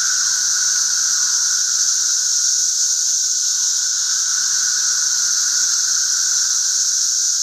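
A dense chorus of periodical cicadas singing: a loud, steady, high-pitched drone with a weaker, lower band of song beneath it, unbroken throughout.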